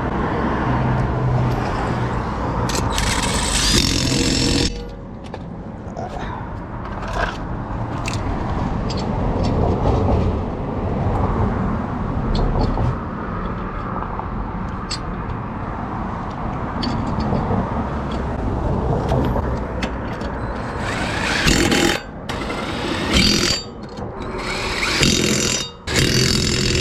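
Several short, harsh bursts from an impact wrench, a second or so each, one near the start and three in the last several seconds, over a steady vehicle hum and roadside noise.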